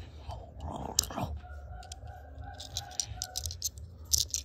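Plastic LEGO pieces and toy figures clicking and rattling as they are handled, with one sharp click about a second in and a cluster of clicks near the end.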